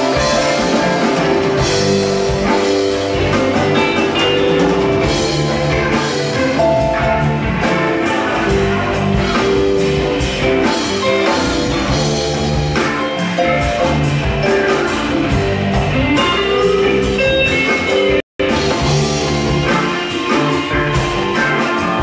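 Live rock band playing: electric guitars, bass and drum kit with keyboard, at a steady high level. The sound cuts out completely for a split second about eighteen seconds in.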